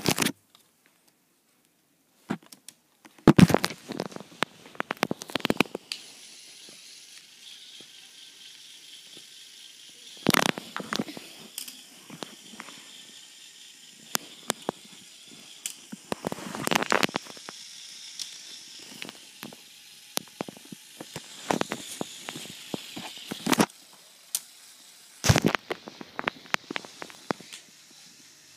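Sharp plastic clicks and clattering in scattered clusters, from a Lego Technic model being handled and worked, with a faint steady high whine through the middle stretch.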